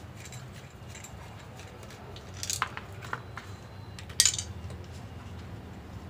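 Small plastic clicks and rattles as a hair dryer's plastic handle housing is worked apart by hand, with a cluster of sharper clicks about two and a half seconds in and one louder snap about four seconds in as the cover parts come loose. A low steady hum lies underneath.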